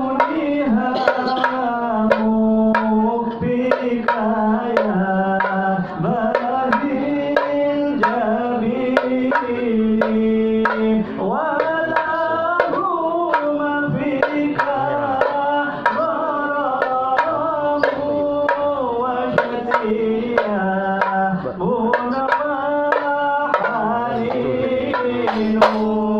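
Men singing a devotional song to hand-struck frame drums (rebana) beating a steady rhythm.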